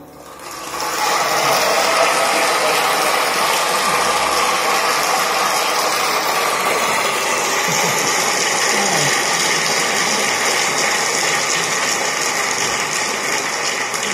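Audience applause from a live concert recording, played back over vintage Acoustic Research AR3 loudspeakers and heard in the room: dense, steady clapping that swells up about a second in, just after the song ends.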